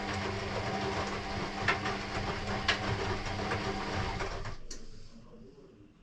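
Electrolux EW6S404WU washing machine running early in its wash cycle: a steady hum with hiss and a few clicks, which stops with a click about five seconds in.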